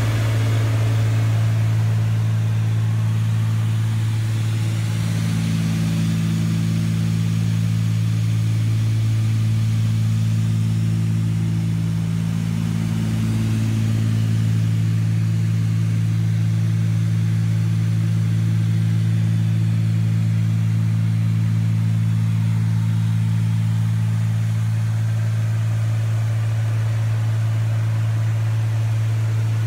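Cessna 310's twin piston engines and propellers droning steadily in cruise, heard inside the cabin: a deep, even hum that swells gently and falls back twice.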